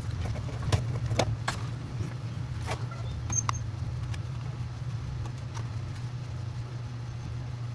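Scattered light clicks and knocks of hard plastic RC truck chassis parts being handled and set down, over a steady low hum.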